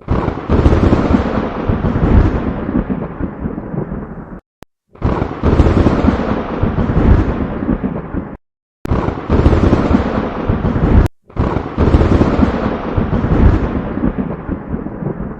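Thunder-and-lightning sound effects: four thunderclaps in a row, each striking suddenly and rumbling down over two to four seconds, then cut off abruptly into a brief silence before the next.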